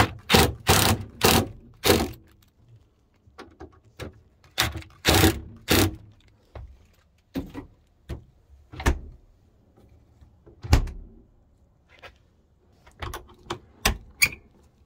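A series of sharp knocks, clunks and rattles from hands working the refrigerator's door, lock hardware and tools: a quick run of them in the first two seconds, another cluster around five seconds, then scattered single knocks.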